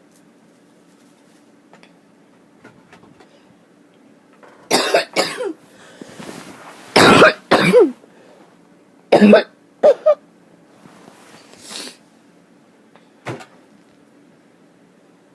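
A person in a harsh, choking coughing fit: loud hacking coughs come in three clusters of two or three, then a single short cough near the end.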